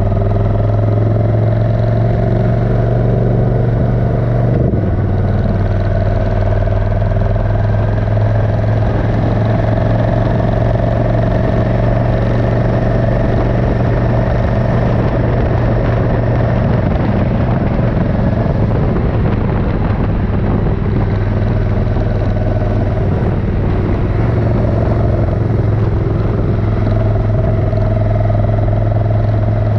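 Suzuki Intruder 1400's V-twin engine running steadily while the motorcycle is ridden on the road, with a brief dip about four and a half seconds in.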